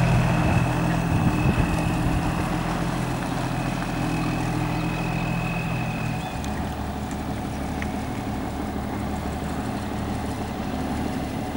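Diesel engine of a 1977 Kenworth cabover semi tractor pulling away with a trailer, running steadily with a high whine over it. About six seconds in the whine stops and the engine note drops lower, and the sound slowly fades as the truck moves off.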